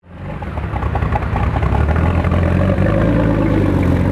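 A vehicle engine running steadily, with a deep hum, fading in over the first half second.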